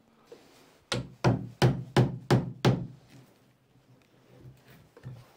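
Six quick hammer blows, about three a second, on a metal bar set against old timber to lever it off the framing inside a wooden boat's hull; a few fainter knocks follow near the end.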